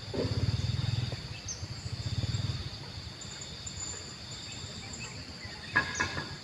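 Cat coughing: two low, pulsing hacking bouts about a second each in the first few seconds. Insects chirr steadily throughout, and a sharp click sounds near the end.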